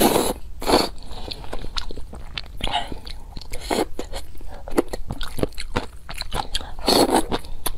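Close-miked noodle slurping and chewing. A slurp at the start gives way to wet chewing with many small mouth clicks, and another slurp comes near the end.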